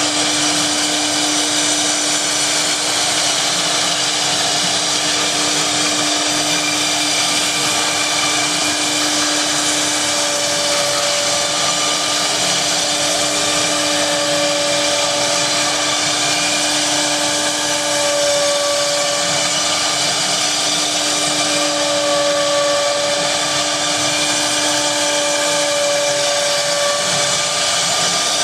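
CNC router spindle running at a steady pitch with a strong whine and hiss while machining foam. A second, higher tone comes and goes from about ten seconds in.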